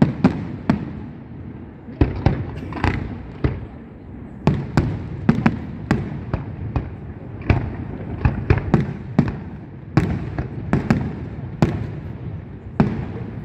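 Aerial firework shells bursting in an irregular run of sharp bangs, about two a second, over a continuous low rumble.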